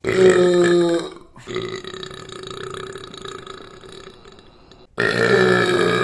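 A man belching loudly: a burp lasting about a second, then a long, quieter drawn-out belch, then another loud burp starting about five seconds in.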